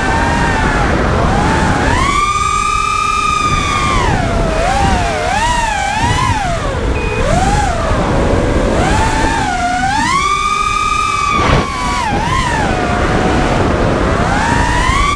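FPV racing quadcopter's brushless motors and tri-blade propellers whining, heard from the onboard camera, the pitch sweeping up and down with the throttle: held high for a second or two twice and wavering quickly in between, with a short dip about eleven and a half seconds in.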